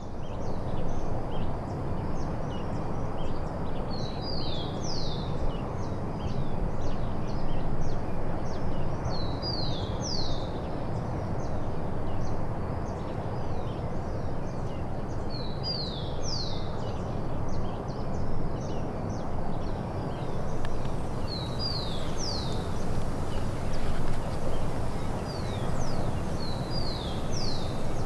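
A songbird repeats a short phrase of a few quick high notes about every six seconds, over a steady rushing background noise.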